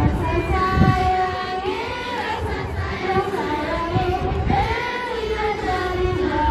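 A group of young voices singing together: a slow melody with long held notes that bend up and down. A few low thumps sound underneath, about a second in and again around four seconds.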